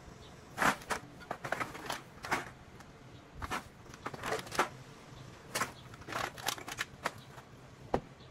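Plastic garbage bags full of recyclables rustling and crinkling in short irregular bursts as they are lifted and pushed into a car's back seat, with a sharp knock near the end.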